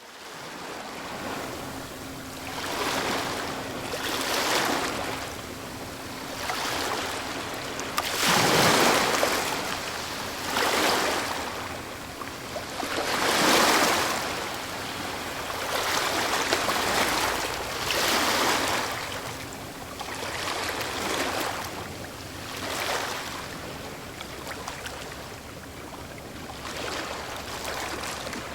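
Medium waves breaking on a stony shore, each surge swelling and fading every few seconds, with water rattling and trickling through small stones as it draws back. A faint steady hum from a very distant vessel runs underneath, fading out for a while in the middle.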